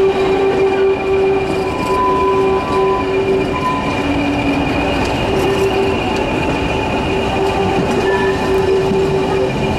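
A diesel-hauled passenger train running round a curve, its steel wheels squealing against the rails in a steady high tone that breaks off and resumes several times over the rumble of the train. The train is top-and-tailed by a BR Class 20 diesel locomotive.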